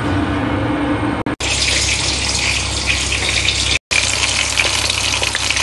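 A steady mechanical hum cuts off suddenly about a second in. After it comes a loud, even rush of running water, broken once by a brief dropout.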